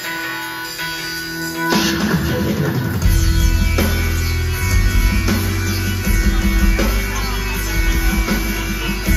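Live rock band music with guitar. Held notes ring at first, then a strummed chord comes in about two seconds in, and heavy bass and the full band join about a second later.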